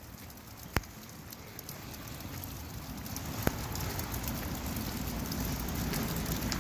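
Steady rain falling on pavement and street, gradually getting louder, with the patter of drops and two sharp clicks, about a second in and about three and a half seconds in.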